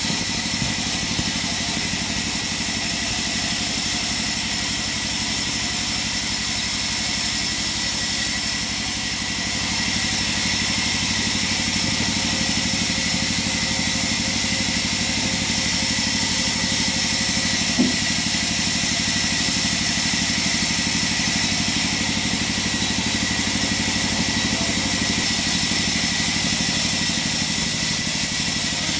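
Sawmill machinery running steadily, a continuous mechanical hum with several steady whining tones and a high hiss. The level dips briefly about eight seconds in, and there is a single sharp click near eighteen seconds.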